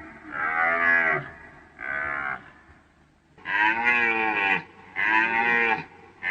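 A deer calling four times in a row, each call a pitched bellow of under a second to about a second that drops in pitch at its end, with short pauses between.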